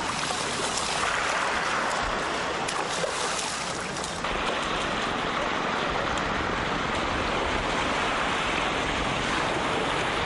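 Shallow sea water washing and sloshing at the shoreline: a steady rushing noise.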